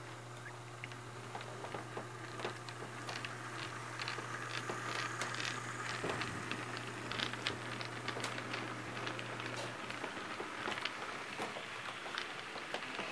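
An HO-scale model train rolling past close by: many small, irregular clicks and rattles from the wheels running over the track, growing busier a few seconds in as the locomotive and cars go by.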